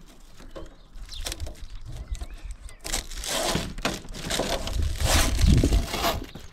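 Clear protective plastic film being peeled off a MaxxAir roof fan's plastic lid, crinkling and crackling. It gets louder about halfway through as the sheet pulls free.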